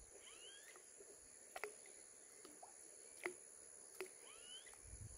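Near silence: outdoor ambience with a steady high-pitched insect drone, two faint rising whistled calls, one near the start and one near the end, and a few faint ticks.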